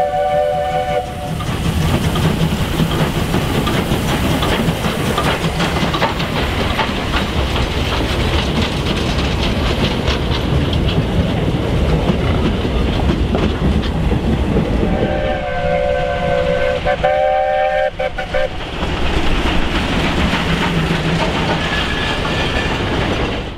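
South African Class 19D steam locomotive and its train: the whistle sounds a chord briefly at the start, then the rumble and clatter of wagons rolling past close by. About fifteen seconds in the whistle sounds again in two blasts, followed by more rumbling of the moving train.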